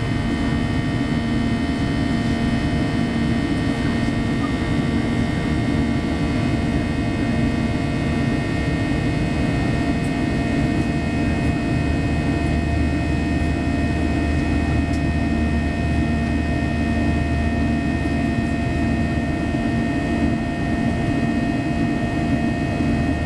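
Steady cabin noise of a Boeing 737-800 climbing out after take-off: the rush of its CFM56 jet engines and airflow, with several steady whining tones over it. A low hum grows a little stronger about halfway through.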